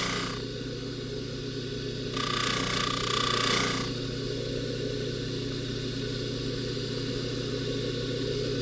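Bench polishing buffer motor running with a steady hum, and from about two to four seconds in a brushing hiss as an 18-karat gold chain is held against the spinning wheel.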